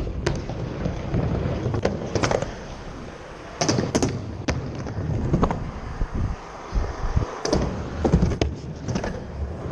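Skateboard rolling over ramps, with a continuous low rumble of the wheels and a string of sharp clacks and knocks as the board hits, pops and lands on the obstacles.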